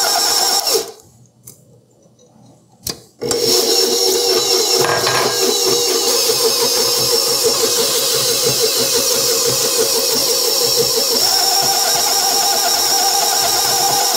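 KitchenAid bowl-lift stand mixer motor running, its beater blade turning through butter-and-egg batter in a stainless bowl. About a second in the motor stops, two light knocks sound during the pause, and it starts again about three seconds in. Its pitch steps up slightly near the end.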